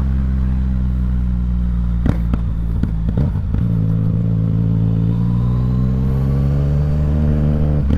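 Yamaha MT-09's three-cylinder engine, remapped for pops and bangs, running at low revs with a few short crackles about two to three and a half seconds in. The engine note then rises slowly as the bike accelerates gently.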